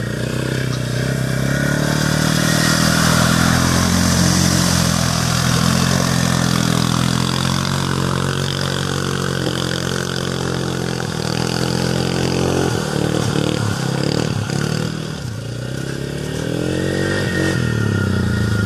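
ATV engine running hard under throttle, its pitch rising and falling as the rider revs through mud, with a dip and a climb again in the second half.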